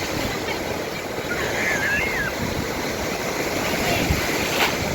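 Sea waves breaking and washing ashore in a continuous rushing surf.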